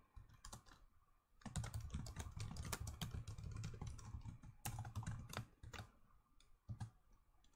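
Faint computer keyboard typing: a quick run of keystrokes after a brief pause about a second in, thinning to a few scattered taps near the end.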